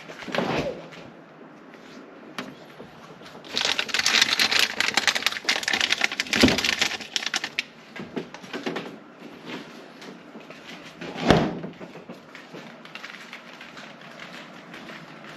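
Rapid clicking patter of running on a hard floor in a small room, thickest for about four seconds from a few seconds in, with a few short thumps before and after.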